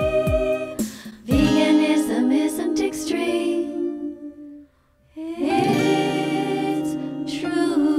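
A song: a voice singing over instrumental accompaniment, which drops out for a moment about halfway through.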